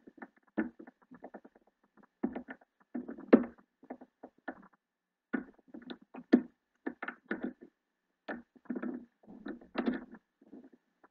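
Hook pick scraping and clicking against the standard pin tumblers of a small Wolf Dog padlock, held under tension from a pry bar at the top of the keyway. Irregular small clicks and scratches, with a few sharper clicks about three and six seconds in.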